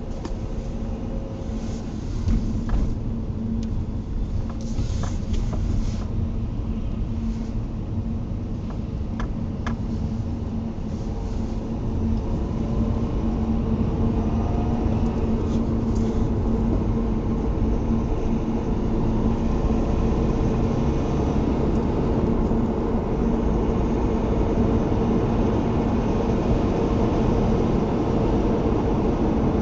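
Subaru engine running hot, with a steady mechanical hum that grows louder about twelve seconds in and a few sharp clicks early on; the noise is the one the owner puts down to the timing chains.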